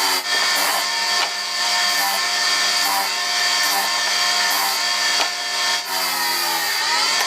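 Electric power tool motor running at steady speed while cutting wood, with two brief dips, about a quarter second in and near six seconds.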